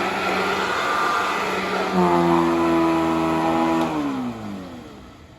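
Hoover Model 115 upright vacuum cleaner running steadily. About two seconds in it grows louder with a clear whine, then from about four seconds it winds down, the whine falling in pitch as the motor slows to a stop.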